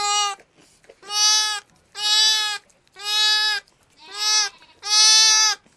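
Newborn lamb bleating repeatedly: six high, steady-pitched bleats, about one a second.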